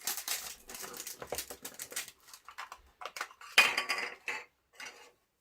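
Irregular rustling and clattering as small puzzle-figure packs and their pieces are handled and opened, with a louder clatter about three and a half seconds in.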